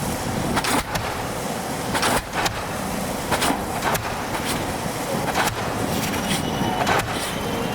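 Pile-driving hammer on an EO-5111B excavator's pile-driver rig striking a pile about every second and a half, over the steady running of the machine.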